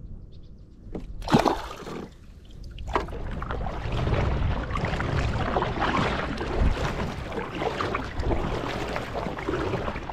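A sharp splash about a second in, as a small bass is dropped back into the water. Then a kayak is paddled along: the paddle blades dip and water sloshes and trickles against the hull.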